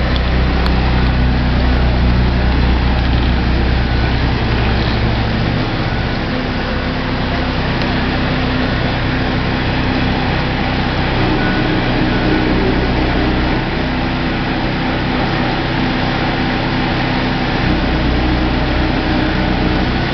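Engine running steadily with a low hum; its lowest tone drops away briefly about six seconds in and again for a few seconds in the second half.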